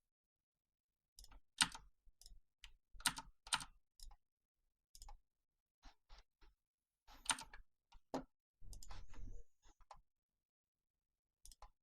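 Faint computer keyboard and mouse clicks, scattered and irregular, with a short quick run of clicks about three-quarters of the way through.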